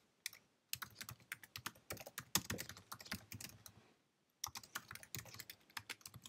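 Faint typing on a computer keyboard: runs of quick keystrokes, a pause of about a second a little past the middle, then more typing.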